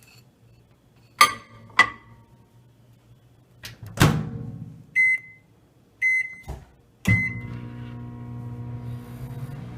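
Microwave oven being loaded and started: two sharp clacks, then a thud as the door shuts, three keypad beeps about a second apart, and then the oven starts running with a steady hum.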